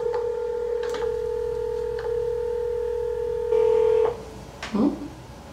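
A phone on speaker sounding a steady electronic call tone for about four seconds. The tone gets louder shortly before it cuts off, and a brief vocal sound follows near the end.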